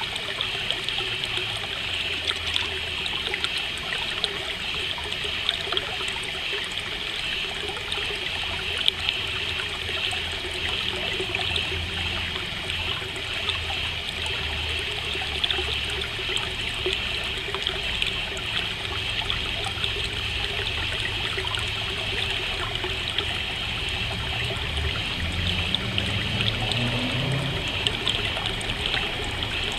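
Stream trickling and babbling steadily. A low rumble rises in pitch briefly near the end.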